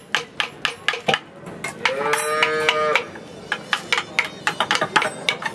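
Hand chisels being tapped into rosewood, quick sharp taps about four a second. About two seconds in, a long held tone sounds for about a second over the tapping.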